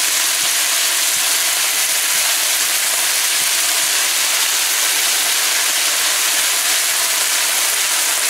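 Rice frying in hot ghee and sugar in a nonstick frying pan, stirred with a silicone spatula: a steady, loud sizzle.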